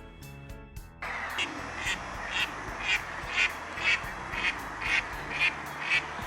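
An animal calling over and over, about two calls a second at an even pace, against a steady noisy background. It follows a second of music.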